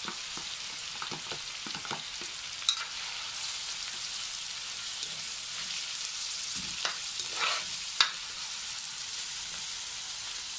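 Shredded boiled chicken, garlic, onion and chicken livers sizzling steadily in hot oil in a wok, with a spatula scraping and clinking against the pan as the sauté is stirred. The sharpest clinks come about a third of the way in and again near the end.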